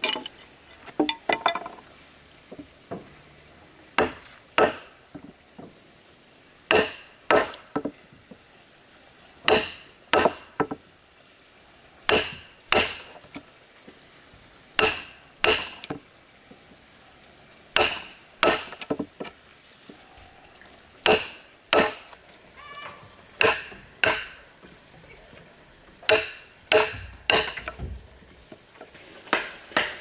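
Wooden mallet driving a chisel into a timber beam to cut a mortise: sharp wooden knocks in twos and threes, a group every two to three seconds.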